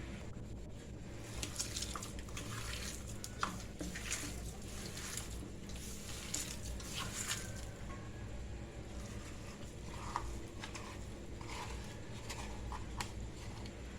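Kitchen food-preparation noises: irregular soft wet squishes and light clicks, as of raw mince being handled and mixed, over a steady low hum.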